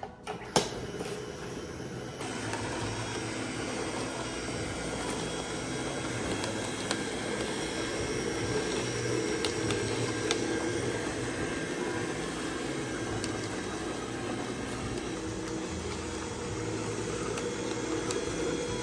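Nama J2 slow (cold-press) juicer running, its motor driving the auger through packed watermelon: a steady mechanical hum starting about two seconds in, after a couple of knocks near the start.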